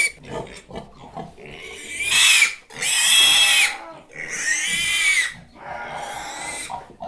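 Pig squealing: four long, shrill squeals, each rising and then falling in pitch, with quieter, lower sounds in the first two seconds.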